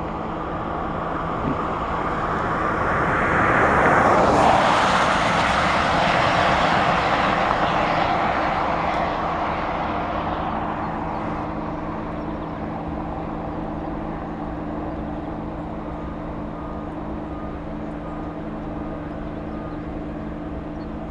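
A fixed-wing aircraft passing overhead: a broad rushing noise that swells to its loudest about four seconds in and then slowly fades away. Beneath it runs a steady low hum made of several even tones.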